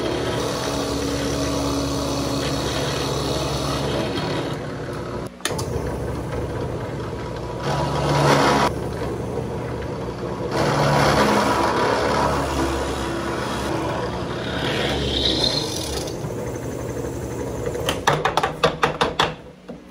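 Benchtop drill press running, its motor humming steadily while the bit bores into a wooden block, growing louder twice as the bit is fed into the wood. The bit is cutting dry, without wax. A quick rattle of clicks comes near the end.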